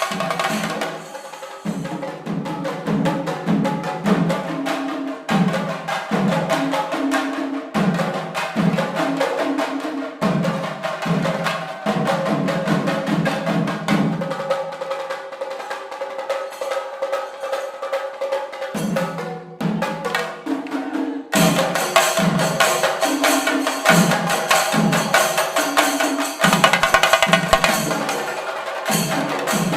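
Shinkari melam ensemble of chenda drums and ilathalam hand cymbals playing a fast, driving rhythm of dense drum strokes under continuous clashing cymbals. The playing thins briefly about two-thirds of the way in, then comes back louder and denser.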